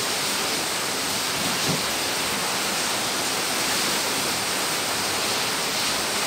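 A steady, even hiss with nothing else distinct in it.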